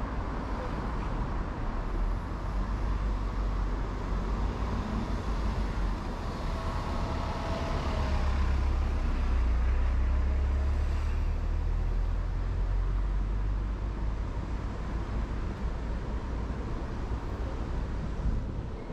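Steady road traffic on a multi-lane city road: cars and buses passing in a continuous low rumble. A heavier vehicle passing makes it swell loudest about halfway through.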